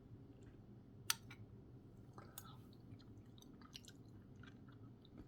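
Faint mouth sounds of someone tasting yogurt: soft lip and tongue smacks and small clicks, with one sharper click about a second in, over a low room hum.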